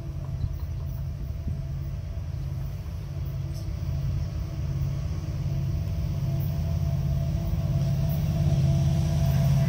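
Approaching diesel locomotive at the head of a freight train: a low engine rumble that grows steadily louder as it nears.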